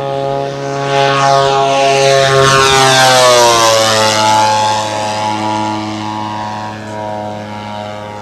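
Engines of a radio-controlled scale B-25 model bomber on a fly-past. The sound swells as it approaches, then drops in pitch as it goes by about three to four seconds in, and carries on lower and fainter as it flies away.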